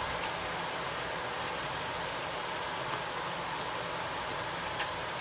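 Diced bottle gourd (upo) cubes tipped from a bowl into a steel pot, landing with scattered light clicks and taps over a steady hiss.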